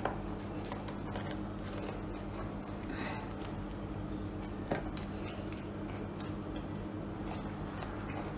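Metal pizza-cutter wheel rolling through a baked pizza, with faint scraping and scattered light clicks against the crust and pan, the sharpest a little under five seconds in. A steady low hum runs underneath.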